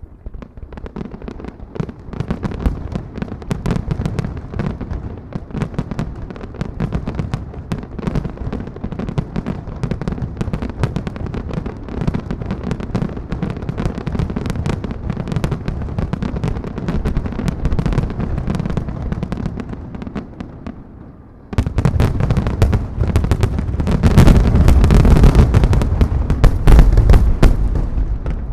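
Fireworks grand finale: a dense, rapid barrage of shell bursts and crackling bangs. About three-quarters of the way through it suddenly gets much louder and heavier, and it is at its loudest near the end.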